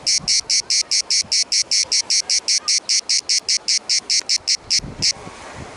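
Cicada singing: a loud, rhythmic buzz of about five to six pulses a second that stops abruptly about five seconds in.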